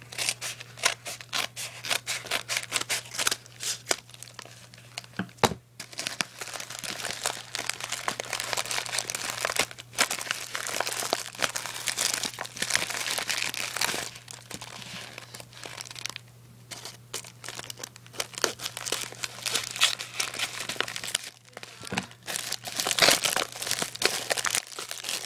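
Scissors snipping open a paper mailing envelope, followed by paper and plastic packaging crinkling and tearing as a black plastic phone case and holster are pulled out and unwrapped from their plastic bag.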